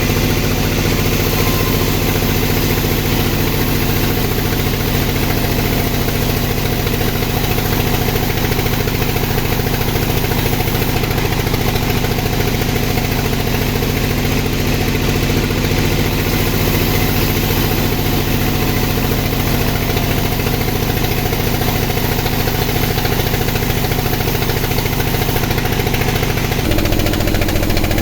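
Engine-driven sawmill running steadily while sawing sengon wood into boards. Near the end its note drops and grows a little louder.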